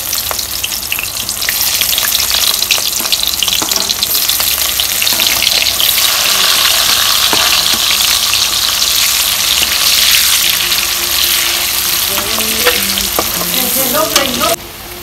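Chopped onion and chillies frying in hot oil in a kadai: a loud, dense crackling sizzle with the scrape of a slotted spatula stirring. The sizzle cuts off suddenly near the end.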